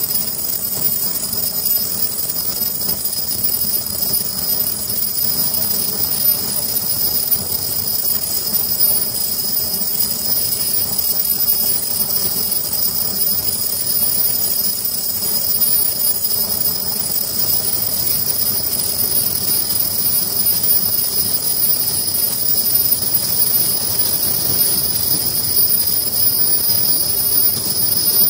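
Richpeace automatic sleeve making machine running steadily, a continuous mechanical running noise with steady high-pitched whines over it.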